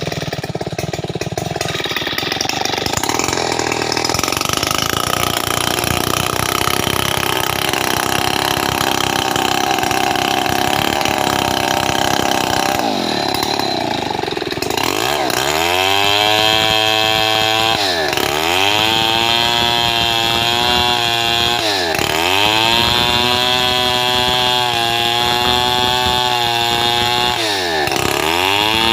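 Stihl 070 two-stroke chainsaw cutting a wide gmelina board. It runs steadily at first, then about halfway through it revs up, and its engine speed dips and climbs back again several times.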